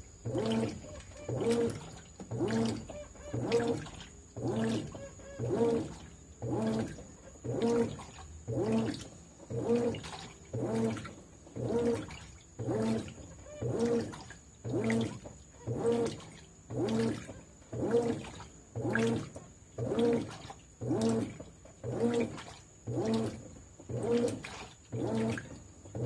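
Consul 13 kg top-load washing machine agitating a full load on the delicate cycle at water level 4. The motor drives the agitator in short strokes about once a second, each a hum with water sloshing, with brief pauses between strokes. A faint steady high whine runs under it.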